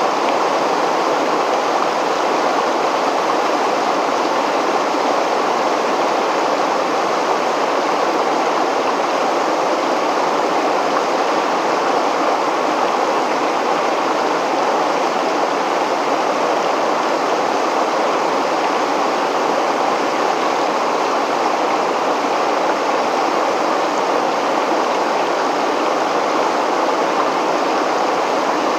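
River water pouring over a weir and churning into white water, a loud, steady rush that does not change.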